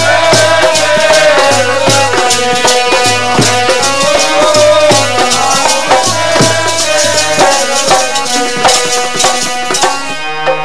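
Sikh kirtan music: a harmonium playing a held melody over a steady drum beat and sharp jingling percussion strokes. The jingling percussion drops out near the end.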